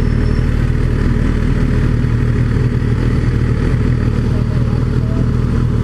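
MV Agusta Brutale motorcycle engine running steadily at low road speed, heard from on the bike, with no revving.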